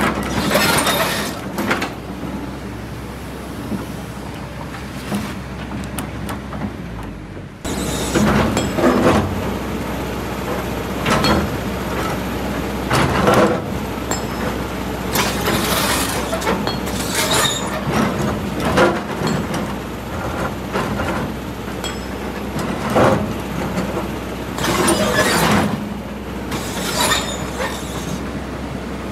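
Kobelco hydraulic excavator at work, its diesel engine a steady drone, with repeated scraping and grinding as the steel bucket pushes against large boulders and rock. The engine gets louder about seven and a half seconds in.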